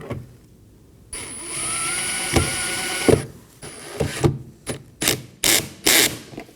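Cordless drill-driver running for about two seconds, its motor whine rising slightly, as it drives a Phillips screw into the door trim panel, followed by several short trigger bursts as the screw is snugged down.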